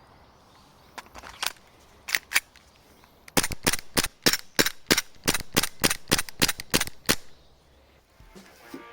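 Striker 9 airsoft gas blowback pistol firing: a few light clicks, two single shots, then a fast string of about sixteen shots at roughly four a second, each a sharp crack with the metallic clack of the slide cycling. Music starts near the end.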